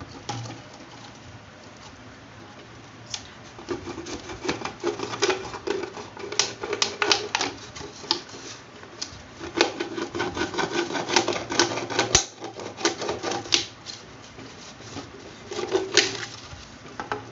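Empty plastic bottle crackling and crinkling under the hands as it is cut apart, in irregular runs of sharp clicks that start about three seconds in, ease briefly near the end and flare again.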